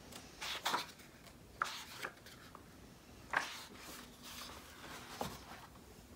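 Pages of a hardcover picture book being turned and handled: several brief paper rustles and flicks, the loudest a little past the middle.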